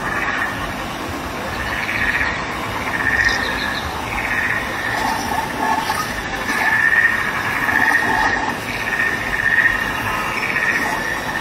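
A chorus of pulsing, trilling chirps recurring about once a second, like frogs or insects, over the steady rush of small waterfalls splashing into a pond.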